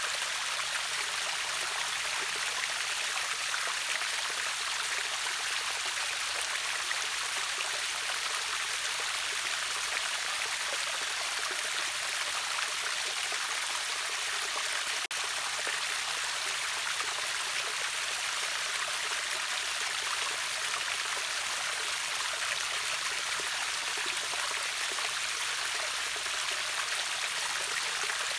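River waterfall, water rushing and splashing in a steady, bright hiss with a brief dip about halfway through.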